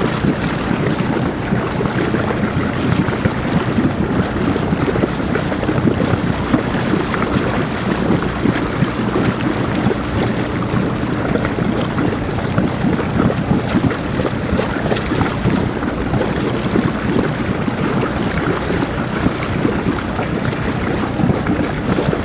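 Motorboat engine running steadily while towing, with wind buffeting the microphone and water rushing past.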